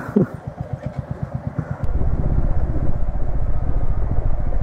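Royal Enfield Meteor 350's single-cylinder engine thumping along on the move, turning clearly louder about two seconds in.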